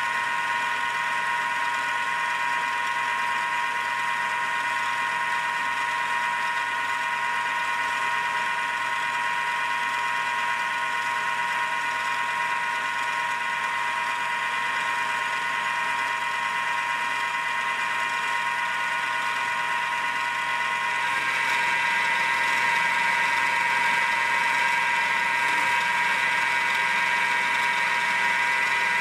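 Milling machine spindle running steadily with a high motor whine while an end mill cuts an 8 mm-pitch helix into a plastic rod turned by a leadscrew-driven dividing head. About two-thirds of the way through, the whine gets slightly louder and changes in tone.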